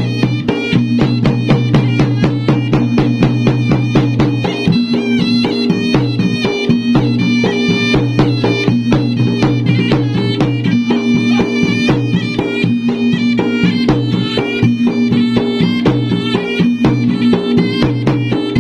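Traditional Bugis-Makassar gendang ensemble playing. Fast, dense drum strokes run under a wind instrument holding a sustained melody.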